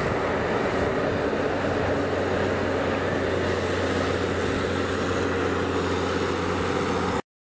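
Tractor diesel engines running steadily under load while buckrakes push grass on a silage pit. The sound cuts off suddenly about seven seconds in.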